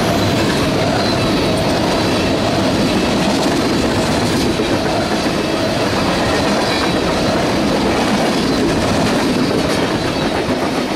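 Empty tank cars of a CSX oil train rolling past close by: a loud, steady rumble and rattle of steel wheels on the rails.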